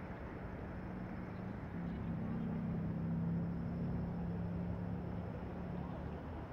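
City ambience: a steady distant hum of traffic, with a low engine drone that swells about two seconds in and fades again near the end.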